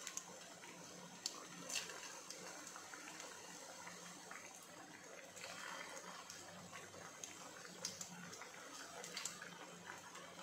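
Bread cutlets deep-frying in hot oil in a pan: a faint, steady sizzle with scattered sharp pops and crackles.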